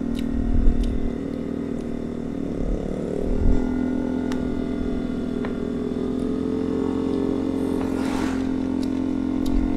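Honda ADV 160 scooter's single-cylinder engine running steadily at cruising speed, with a few light clicks and a brief whoosh about eight seconds in.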